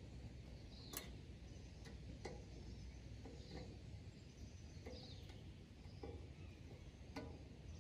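Faint, irregular metal clicks of an Allen key working the retaining bolts of a baffle insert inside a motorcycle exhaust pipe, about six over several seconds, while they are snugged tight. Faint bird chirps sound in the background.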